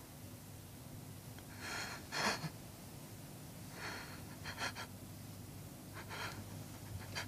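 A man weeping: gasping, breathy sobs coming in bursts about every two seconds.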